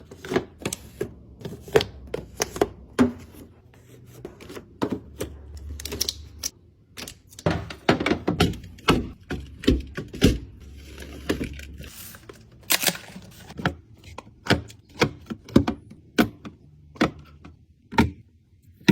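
Irregular clatter of hard items being handled and set down, several sharp knocks and clicks a second, as a fridge is cleaned out and restocked.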